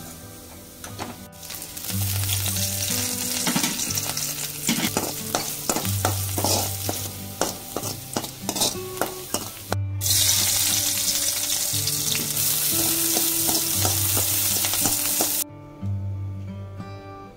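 Garlic, ginger and green chillies sizzling as they fry in sesame oil in a metal wok, with a metal slotted spoon scraping and clicking against the pan as they are stirred. The sizzle grows thicker about two-thirds of the way through, then cuts off suddenly near the end.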